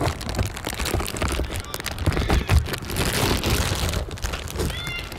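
Outdoor soccer-field ambience: a constant low rumble and hiss with scattered knocks, and a few brief, faint distant shouts near the end.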